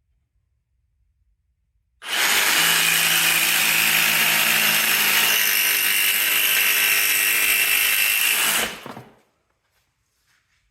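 Jigsaw cutting across a 1x4 pine board: the saw starts about two seconds in, runs steadily for about six and a half seconds as the blade saws through, then stops abruptly, with a couple of faint knocks after.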